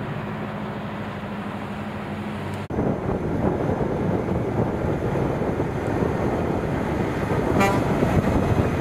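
Diesel engine of a semi-truck prime mover driving away. A second, louder prime mover follows, its engine and tyres passing close, and near the end it gives one short horn toot.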